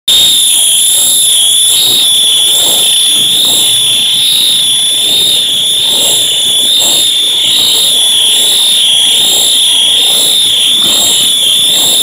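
Fire alarms sounding together in one continuous high-pitched tone that wavers slightly, with no on-off pattern.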